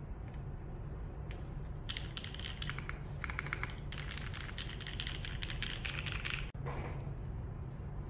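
Typing on the Shelby 80 TKL mechanical keyboard: a fast run of key clacks starts about two seconds in and stops abruptly about six and a half seconds in. A steady low hum lies underneath.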